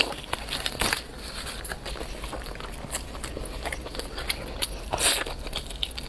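Eating sounds: a person biting into and chewing spiced roast chicken, with small crackly ticks and sharper bites at the start, about a second in and about five seconds in.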